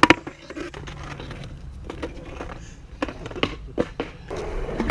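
Skateboard on wet concrete: a sharp clack at the start, a few scattered knocks, and wheels rolling across the ground near the end.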